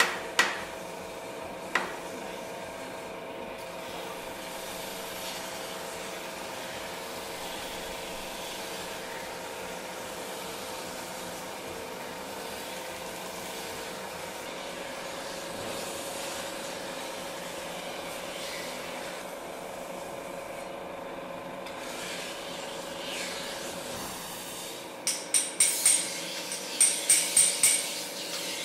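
A water-cooled grinding wheel turns with a steady hum while a steel knife blade is pressed against it, giving a wet, rasping grind. A couple of sharp knocks come at the start, and a quick run of sharp, ringing clinks comes near the end.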